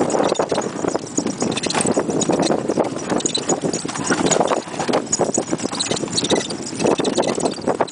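A harnessed pony's hooves clip-clopping steadily on a dirt track as it pulls a cart, heard from on board the cart.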